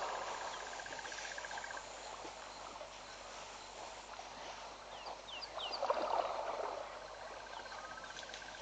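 Water splashing as a young elephant wades and thrashes in a river, with a brief splash at the start and a louder stretch of splashing about six seconds in. A fast pulsing trill runs in the background for the first two seconds and returns near the end, and a few short rising chirps come just before the loudest splashing.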